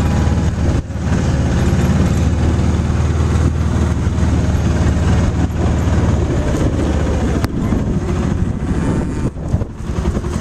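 Vehicle engine running at a steady low hum, with a sharp click about seven and a half seconds in.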